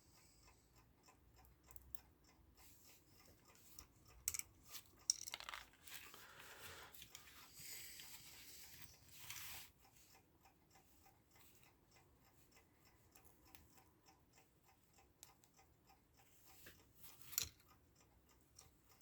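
Faint hand-handling of wiring: small clicks and rustles as bare wire ends are twisted and wrapped together, with soft scratchy hisses in the middle and a sharper click near the end.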